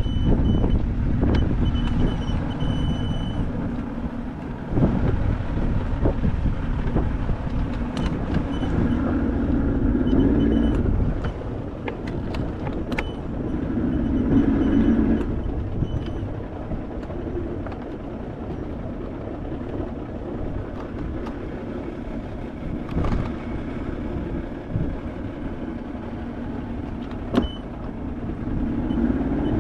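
A motor vehicle running steadily with a low rumble. Its engine hum swells louder a few times, with a few faint clicks.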